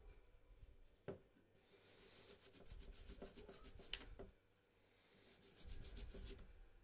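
Quick back-and-forth rubbing or scraping strokes, in two runs of a couple of seconds each, with a single click about a second in.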